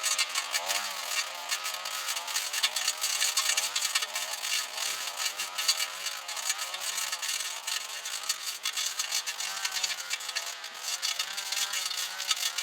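Small handheld two-stroke engine running at high speed, its pitch wavering up and down as the load on it changes.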